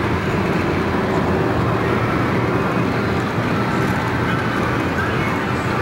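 Steady engine and road noise heard from inside the cabin of a car driving at speed.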